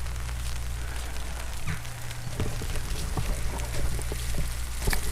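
Rain falling, a steady hiss with scattered drops and light taps, over a low steady rumble.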